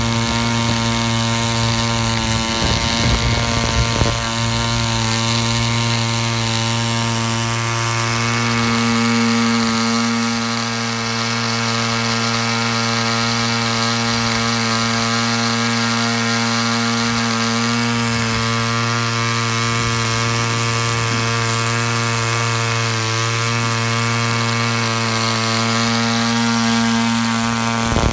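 BollAero 18 home-built 1.8 cc piston-ported model diesel (compression-ignition) engine running steadily with its propeller, holding an even pitch throughout, with a slight dip in level about ten seconds in.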